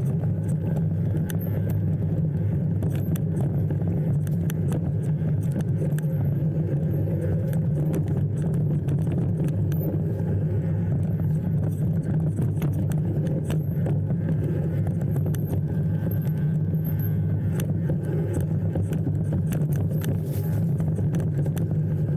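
Steady vehicle running noise, a low drone that holds even throughout, with frequent small rattles and clicks.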